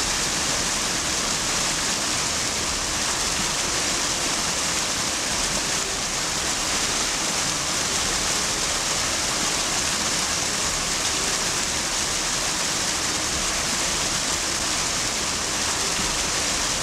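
Spring water rushing and cascading, a steady, unbroken rush.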